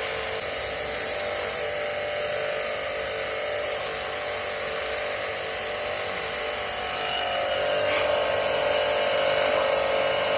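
Electric jet cleaner's motor and pump running steadily with a hissing water spray, getting somewhat louder about two-thirds of the way through.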